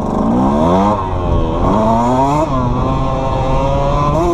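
Dirt bike engine under way, its pitch climbing and falling back twice in the first half, then running at a steadier pitch and rising again near the end.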